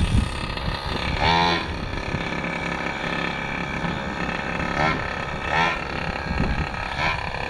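Two-stroke gas engine of an R/C monster truck running, revved up in short bursts several times over a steady drone, with the engine not yet fully broken in.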